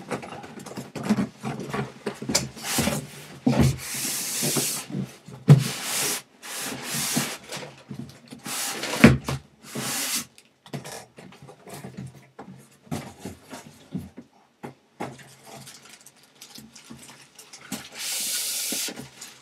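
Large cardboard monitor box being turned upside down and lifted off its polystyrene packing: cardboard and polystyrene rubbing and scraping, with a few dull thumps, the loudest about 5 and 9 seconds in.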